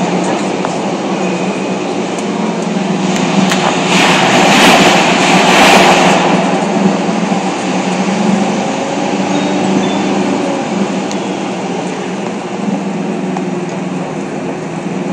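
Airport apron bus driving, heard from inside the passenger cabin: a steady engine hum under road and wind noise, which swells louder for a couple of seconds about four seconds in.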